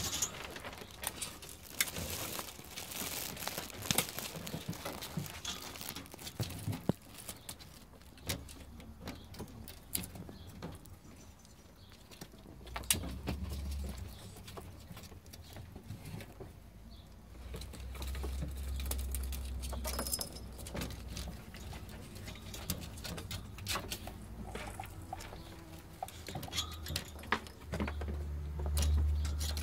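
Albino ferret kits scuffling and wrestling in fabric bedding in a wire cage: rustling with scattered clicks and taps, and a low rumble now and then.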